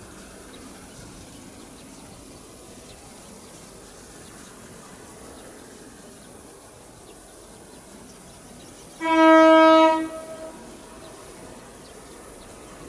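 Horn of a CC 201 diesel locomotive sounding one blast of about a second, about nine seconds in, over faint steady background noise.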